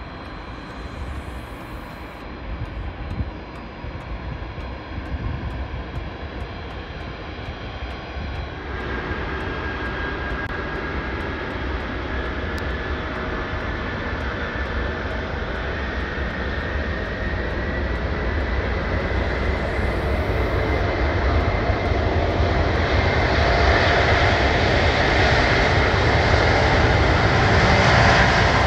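Antonov An-124-100's four D-18T turbofans at high power on its takeoff roll. The jet roar grows steadily louder as the aircraft approaches, with a step up about nine seconds in and a whine that rises slightly in pitch.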